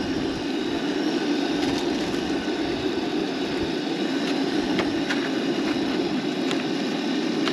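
Propane camp stove burner running with a steady roar while ground meat sizzles in a frying pan, with a few sharp pops.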